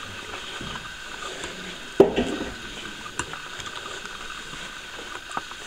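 Footsteps and camera handling noise over a steady hiss: one sharp thump about two seconds in, then a few light clicks.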